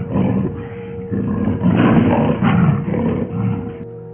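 Big cat roaring and snarling in a run of short, rough bursts that die away a little before the end, with a steady held tone underneath.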